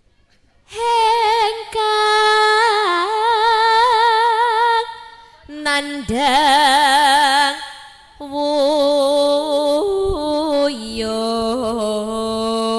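A woman singing solo into a microphone in three long phrases, holding notes with a wide vibrato and sliding between pitches, with no instruments heard with her. Near the end her voice drops to a lower register.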